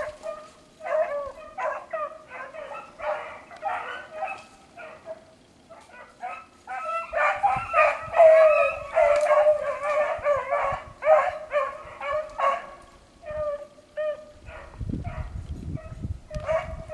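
A pack of beagles baying while running a rabbit's track, many voices overlapping in a steady chorus of bays. The cry swells loudest midway and thins to a few voices near the end.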